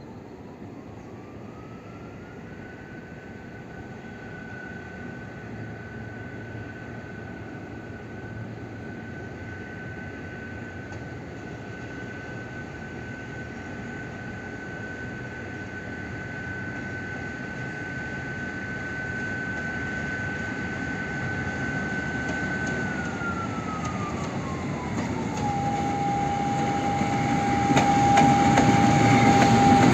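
M62-type diesel locomotive approaching at low speed, its engine running with a thin whine that climbs in pitch in the first couple of seconds, holds steady, and drops back a few seconds before the end. The engine grows steadily louder as the locomotive comes near, loudest near the end.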